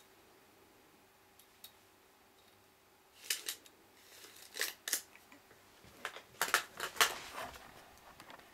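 Sharp clicks and snips, mostly in close pairs, starting about three seconds in, over a faint steady hum.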